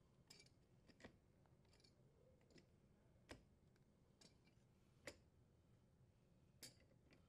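Near silence with a few faint, short clicks, about four spaced a second or two apart, from an adjustable wrench on a dishwasher's front leveling leg as the leg is turned.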